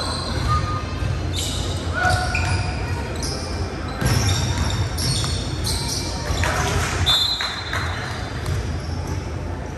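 Indoor basketball game on a hardwood court: the ball bouncing on the floor, sneakers squeaking in short sharp bursts, and players' voices, all echoing in the big gym hall.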